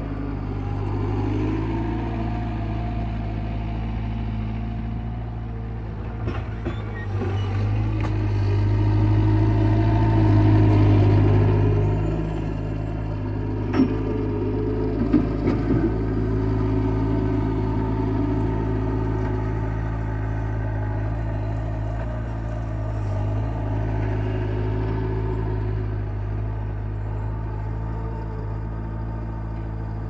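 Bobcat 751 skid-steer loader's engine running while it pushes snow with its bucket, getting louder for a few seconds about a quarter of the way in as it works harder. A few sharp clunks come about halfway through.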